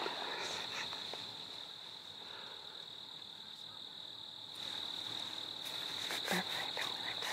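A steady, high-pitched insect chorus that fades in the middle and comes back stronger, with a few soft clicks and rustles near the end.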